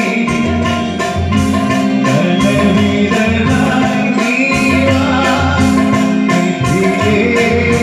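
Live band music through a PA system: held keyboard-like tones over a steady drum and percussion beat, with a man singing into a microphone over it.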